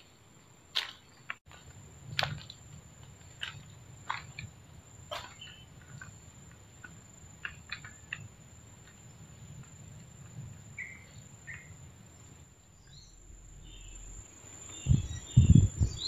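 Footsteps crunching on dry leaf litter, a sharp crackle every second or so through the first eight seconds, over a steady high insect drone. A couple of short bird chirps come about eleven seconds in, and loud low thumps start near the end.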